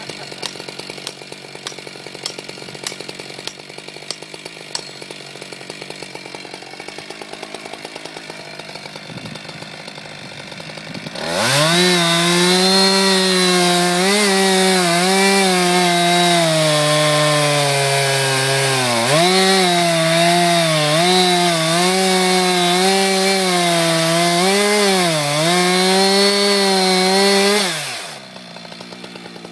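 Two-stroke chainsaw idling, then run at full throttle for about 17 seconds. Its pitch repeatedly dips and recovers as the chain bogs down in the wood, then it drops back to idle near the end.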